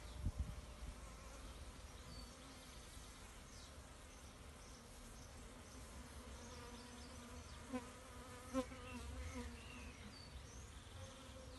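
Honeybees buzzing around a small swarm clustered at a hive box entrance as it is coaxed inside: a steady, faint hum that swells briefly twice about eight seconds in.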